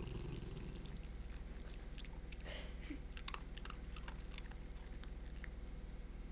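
Pinscher-mix dog chewing and crunching dry dog food while lying down: a run of irregular short crunches, thickest from about halfway through, after a brief low rumble near the start.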